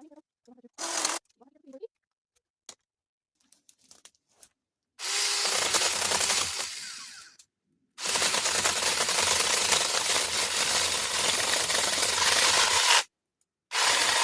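Battery-powered cutting tool running in bursts as it cuts through branches: a short burst about a second in, a run that dies away, a steady run of about five seconds, and a short burst near the end, with light knocks of wood between.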